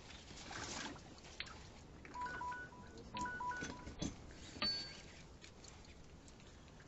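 A quick run of about six short electronic beeps, each two tones sounding together, with a few sharp clicks scattered around them.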